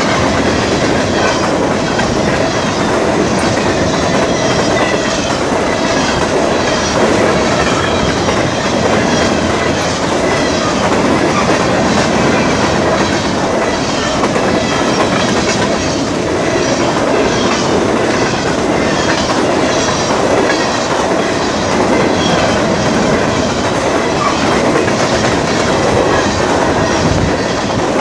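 Freight train of covered hopper cars rolling past close by, the wheels clattering steadily over the rail joints.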